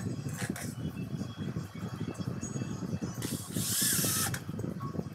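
Homemade grinding machine running with a rough, fluttering rumble, with a high hiss of about a second, a little over three seconds in, as a workpiece is ground.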